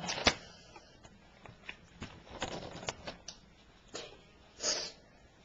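Light handling noises: scattered soft clicks and rustles, with a sharper click just after the start and a short breathy hiss near the end.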